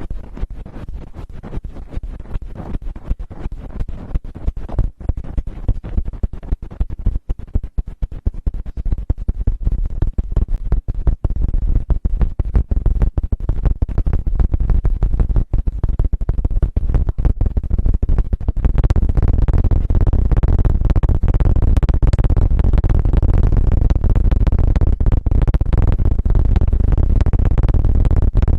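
Close-microphone ASMR 'helicopter' trigger: a rapid, choppy rumble of noise on the microphone, heavy in the low end. It turns louder and steadier about two-thirds of the way in.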